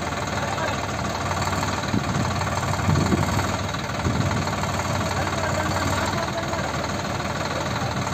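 Sonalika tractor's diesel engine running steadily at idle, with a few louder swells about two to four seconds in.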